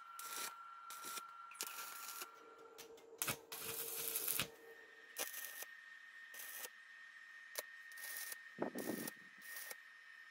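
Electric welder tack-welding steel bicycle-frame tubing: a string of short crackling arc bursts, the longest about a second long around three to four seconds in, with sharp clicks between them. A steady faint high tone runs underneath and steps up in pitch about halfway through.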